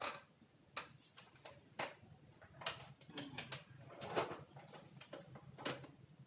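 A handful of irregular light clicks and knocks over a faint steady low hum.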